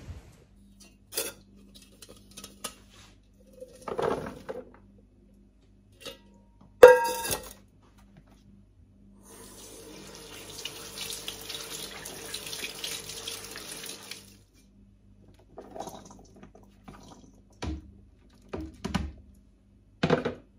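Kitchen tap running into a ceramic sink for about five seconds, rinsing red currants in a plastic colander. Before and after come knocks and clatters as the colander and a bowl are handled in the sink, with one loud sharp knock that briefly rings, about seven seconds in.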